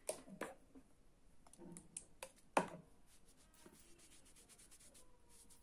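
Quiet handling noise as lipstick swatches are wiped off the hand with a tissue: a few sharp clicks in the first three seconds, the loudest about two and a half seconds in, then soft rubbing.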